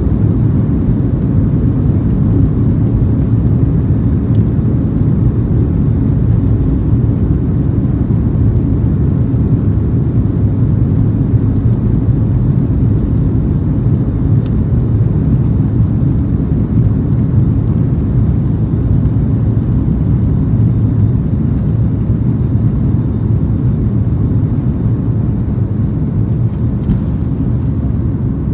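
Boeing 737-800 jet engines at takeoff thrust heard from inside the cabin over the wing: a loud, steady low rumble during the takeoff roll.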